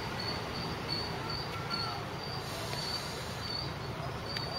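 Low, steady hum and rumble of a Class 317 electric multiple unit standing at the platform, with a faint high chirp repeating about twice a second over it.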